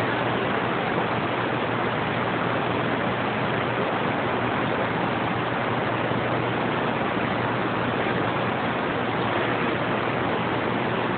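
Steady rush of static from a CB radio with the squelch open, an even hiss with a faint low hum beneath it. No station comes through the noise.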